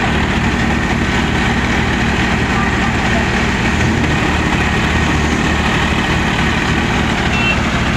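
New Holland 3037 tractor's three-cylinder diesel engine running steadily, driving a Govind thresher through the PTO as wheat is fed in, the thresher's drum and blower running with it.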